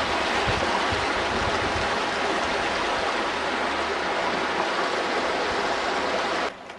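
Steady rushing of a mountain stream's water through a rocky limestone gorge, an even noise that cuts off suddenly near the end.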